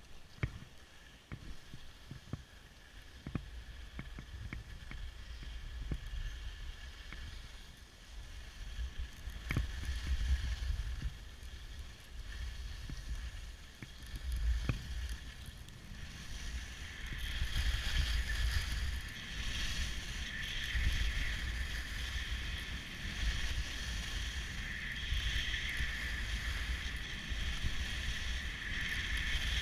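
Skis sliding and scraping over groomed snow, with wind buffeting the camera microphone in a low rumble. The hiss of the skis grows louder a little past halfway as speed picks up, and a few sharp knocks come in the first half.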